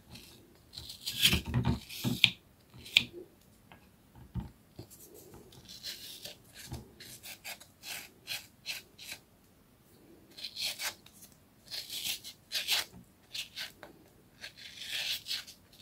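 Wooden stick scraping aloe vera gel out of a split leaf into a glass bowl: short, irregular scraping strokes in scattered clusters.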